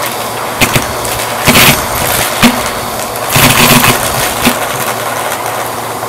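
Bissell vacuum running through its hose attachment with a steady rush of air, broken by irregular clinks and rattles as coins are sucked into the nozzle and up the hose, sometimes one at a time and sometimes several in a quick cluster.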